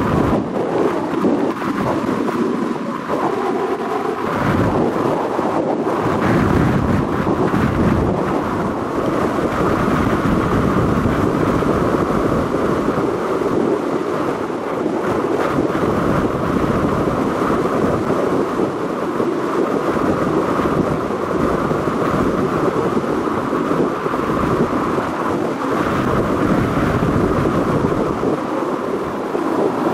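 Steady loud rush of wind buffeting the microphone aboard a moving boat at sea, mixed with water and engine noise.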